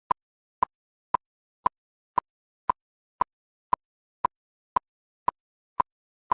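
Metronome ticking steadily, about two short, sharp clicks a second with silence between them.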